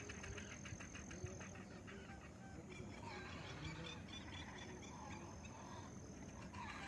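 Birds calling: a fast run of short repeated notes, then several short calls, over a thin steady high tone.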